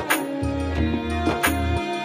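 Background music with a steady beat: a pulsing bass and sharp percussion hits under sustained melodic instrument lines.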